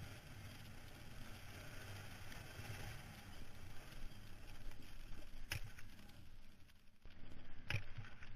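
ATV engine running at low trail speed under a steady noise of riding over dirt and rocks, with two sharp knocks, one about halfway through and one near the end.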